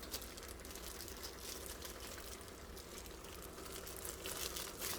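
Faint, soft rustling and small ticks of raw minced meat being pinched off and handled, over a low steady hum.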